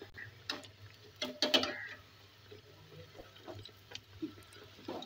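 Metal tongs clicking and clinking against a steel kadai while turning bread pakoras in hot oil. The loudest clatter, with a short metallic ring, comes about a second and a half in, over the faint sizzle of the frying oil.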